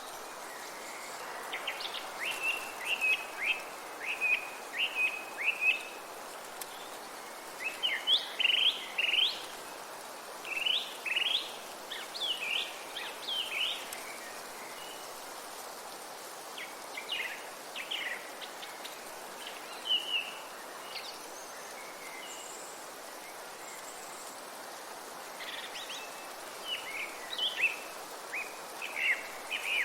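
Songbirds singing in a forest: bursts of quick, high chirping phrases with pauses between them, over a steady background hiss.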